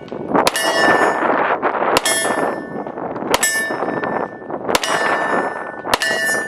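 Five shots from a Glock 43x 9mm pistol, spaced about one every 1.3 seconds. Each shot is followed by the ringing of a steel target as it is hit.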